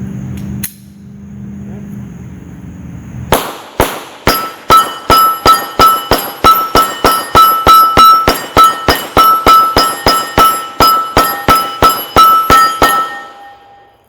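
Glock 17 9mm pistol fired in rapid succession, about two dozen shots at roughly three to four a second, starting about three seconds in, with a ringing tone carrying between the shots. Before the shooting there is a low steady rumble.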